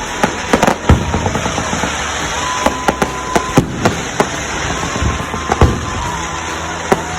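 Fireworks going off: a rapid, irregular series of sharp bangs and crackles, with several long whistles that hold or sink slightly in pitch.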